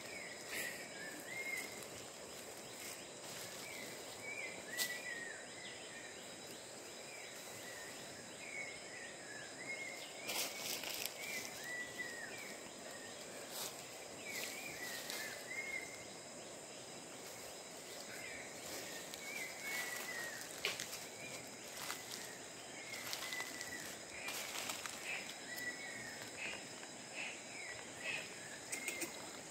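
Tropical forest ambience: a steady high-pitched insect drone, with short chirping calls repeating in clusters throughout and a few sharp clicks.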